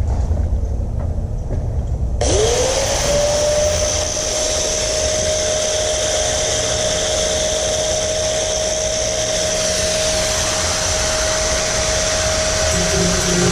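A high-speed grinder spinning up about two seconds in and running steadily at full speed with a high whine and hiss, ready to cut old floor metal off the seat bracket plates; its pitch sags a little near the end.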